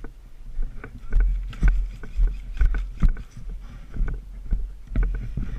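Footsteps of a player moving on foot, dull thuds about twice a second with gear jostling, over low rumble on a body-worn microphone.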